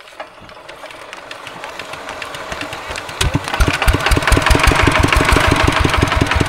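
Tractor diesel engine running in an even, rapid thudding of about eight to nine beats a second. It grows louder through the first seconds and comes in strongly about three seconds in.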